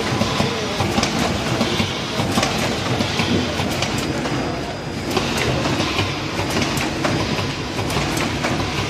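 Frozen food cartoning machine running: a steady, dense mechanical clatter of many rapid clicks and knocks as cartons are carried along its conveyor.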